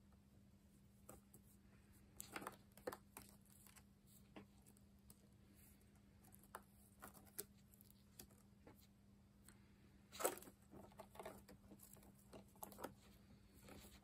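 Faint, scattered scratching and clicking of a Hercules beetle's and a Caucasus beetle's claws and shells against a corrugated cardboard board as they grapple, the loudest click about ten seconds in, over a low steady hum.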